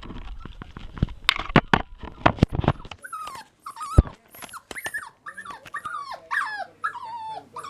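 English Cocker Spaniel puppy whimpering in her cage: a run of short, high cries that slide down in pitch, repeating over and over. Before it, in the first few seconds, come a handful of knocks and rattles, with a sharp knock about four seconds in.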